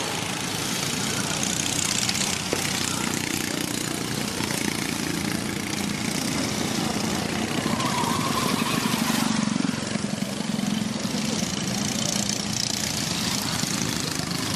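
Go-kart engines running on the track, a steady engine buzz that swells about eight seconds in and drops back suddenly just before ten seconds.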